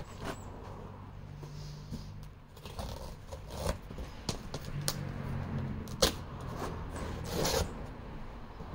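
Cardboard box and its packing being handled and opened by hand: rustling and scraping, with scattered sharp clicks. The loudest is a single click about 6 s in, over a low steady hum.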